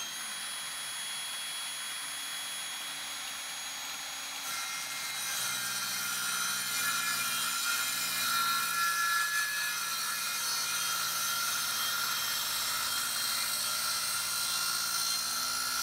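Ryobi miter saw motor running at full speed with a steady whine, then, about four and a half seconds in, the blade biting into a 2x4 and cutting a 45-degree angle, the sound turning louder and rougher for the rest of the cut.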